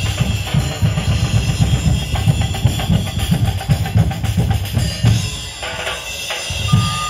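Festival percussion ensemble drumming fast and dense on bass drums and snares. About five and a half seconds in the drumming breaks off for roughly a second, then a few heavy drum hits come back.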